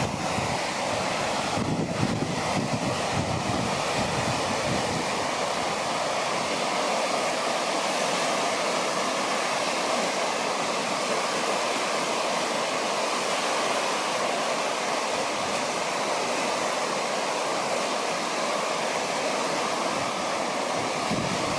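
Murchison River in flood: a steady rush of fast-flowing floodwater, with wind buffeting the microphone in the first few seconds.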